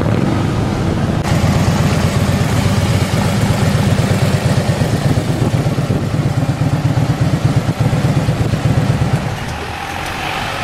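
Harley-Davidson V-twin motorcycle engines running with a fast, even pulsing. It eases off about nine seconds in.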